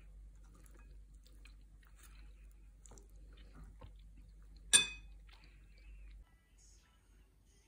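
Scattered small clicks and one sharp, ringing clink of something hard about two-thirds of the way through, over a faint low hum that stops near the end.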